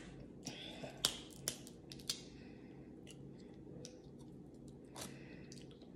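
Boiled crab leg shell cracked and peeled by hand: a few sharp cracks and snaps over the first two seconds and one more about five seconds in, with faint crackling of shell between them.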